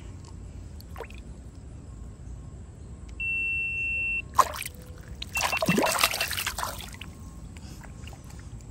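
Water splashing and trickling for about a second and a half, a little past halfway through. About two seconds earlier comes a steady electronic beep lasting about a second.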